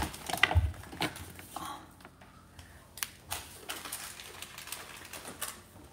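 Scattered light clicks and knocks of plastic fashion dolls and toy pieces being handled and set down on a plastic toy dollhouse, irregular and a little busier in the first second.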